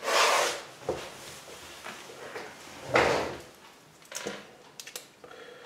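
Small plastic toy parts and their paper and plastic wrapping being handled: two brief rustles about three seconds apart and a few light clicks.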